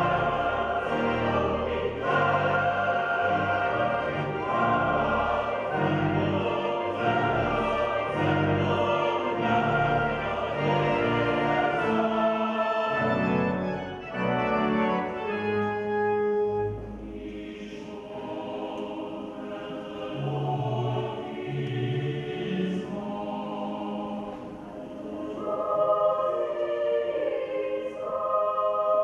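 Cathedral choir of children's and adult voices singing a processional anthem in several parts. Fuller and louder for the first half, thinner and quieter from about halfway.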